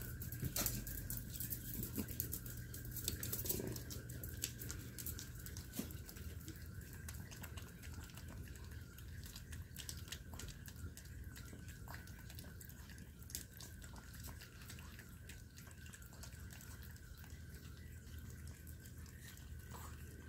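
Maltese dog licking and eating a soft, ripe persimmon held in a hand: faint, irregular wet smacking and licking clicks over a steady low hum.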